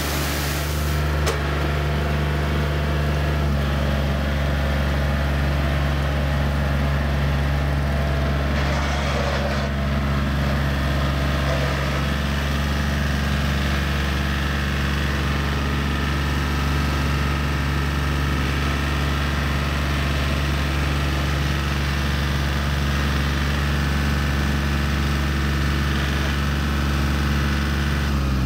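Yanmar EF393T four-wheel tractor's diesel engine running steadily under load while it pulls a rotary tiller through wet paddy mud.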